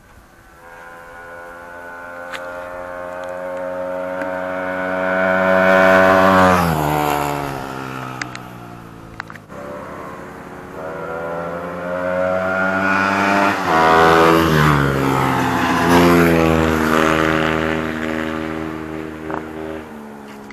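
Yamaha Sniper 150's single-cylinder four-stroke engine under hard acceleration as the motorcycle passes close by, its pitch rising as it approaches and dropping sharply as it goes past about six seconds in. It comes back and passes again with another sharp pitch drop around fourteen seconds in, then fades.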